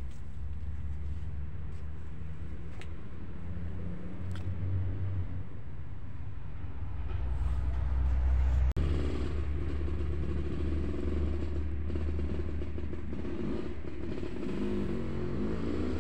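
A steady low engine rumble, with a brief sudden cut about nine seconds in and a drone that wavers up and down in pitch near the end.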